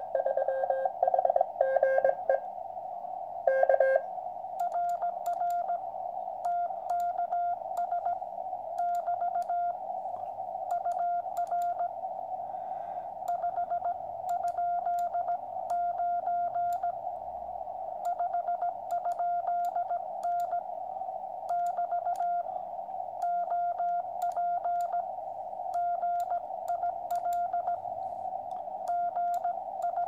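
Morse code from a QCX 80 m CW transceiver over a steady band of receiver hiss. For the first few seconds a lower-pitched incoming signal is heard. From about four seconds in comes a higher steady tone, keyed on and off by hand on a brass Morse key in dots and dashes, with a faint click at each keying.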